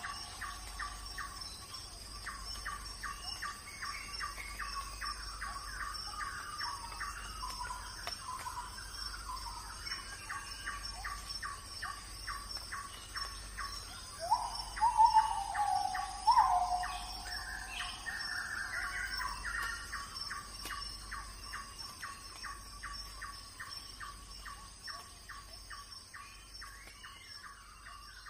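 Birdsong: one bird repeating a short chirp about four times a second, with a few louder rising calls from another bird about halfway through, over a steady high-pitched hum.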